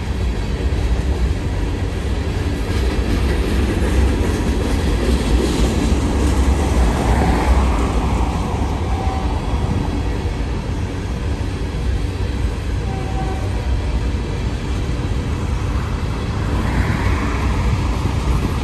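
Empty Union Pacific coal gondolas rolling past, a steady rumble and rattle of wheels and cars on the rails.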